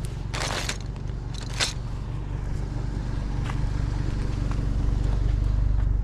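Truck engine running with a steady low rumble, with two short scraping, crunching noises in the first two seconds and a few faint clicks.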